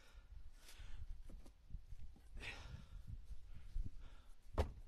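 Split, seasoned oak firewood being picked up and stacked into a pickup truck bed: faint knocks of wood and a heavy exhale, then one sharp wooden clack as a piece lands on the stack about four and a half seconds in.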